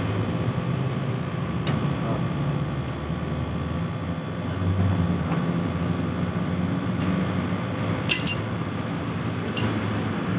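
Steady electric motor and fan hum, with two sharp clacks near the end.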